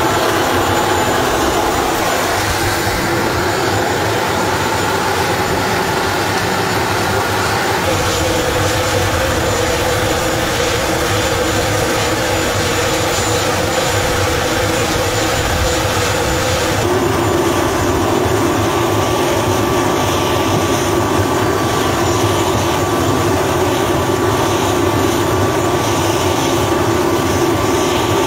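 Steady roar of jet aircraft turbines running on the ground, with a constant whine over it. The whine's tones shift abruptly about eight seconds in and again about seventeen seconds in.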